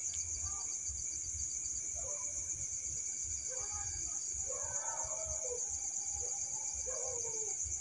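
Steady night chorus of crickets chirring. Faint, distant wavering calls rise over it about two seconds in and go on, on and off, until near the end.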